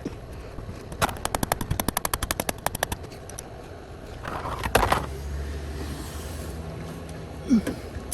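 Socket ratchet clicking rapidly, about ten clicks a second for some two seconds, as the 13mm drain plug is turned, followed by a single louder knock.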